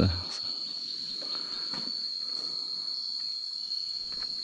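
Crickets chirping in a steady, unbroken high-pitched trill, with one low thump right at the start.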